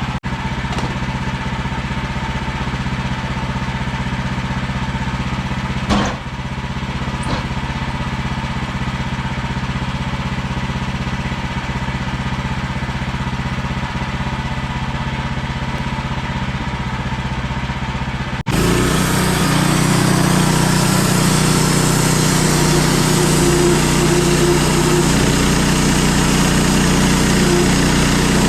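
An engine running steadily, with one short knock about six seconds in. About eighteen seconds in it changes abruptly to a louder, higher-pitched engine sound.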